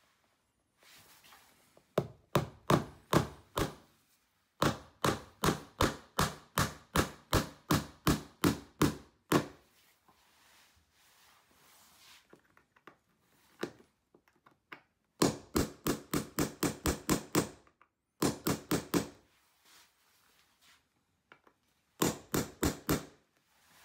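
Hammer striking a steel nail setter to drive a finishing nail's head below the surface of painted wood door trim: quick runs of sharp taps, several a second, in five bursts with short pauses between.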